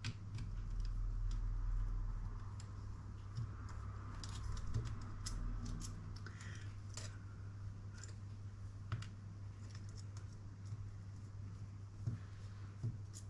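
Light clicks and rustles of small plastic model-kit parts and wires being handled by hand, scattered irregularly, over a steady low hum.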